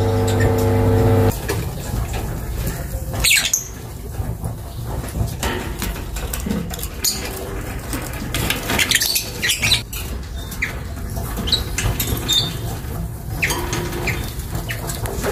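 Caged lovebirds giving short, high chirps and squeaks now and then, with light clicks and scuffles. A low steady hum stops about a second in.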